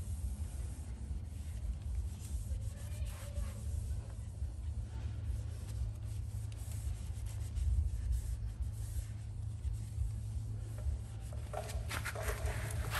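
Applicator pad rubbing ceramic wheel coating onto a car wheel in soft, irregular wiping strokes, over a steady low hum. The scuffing gets louder near the end.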